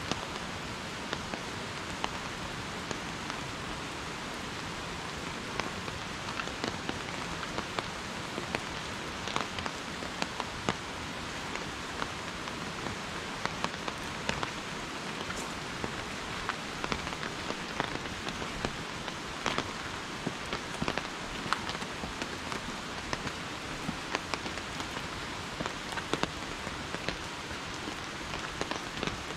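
Steady rain, with many separate drops ticking sharply close by throughout.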